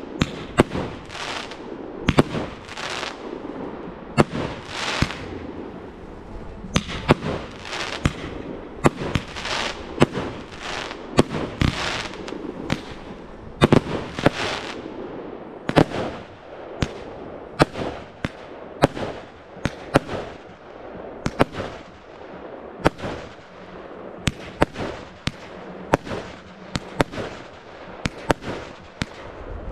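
Fireworks display with shot after shot launched and bursting: sharp bangs about one to two a second, each trailing off in a fizzing, crackling hiss of glittering stars.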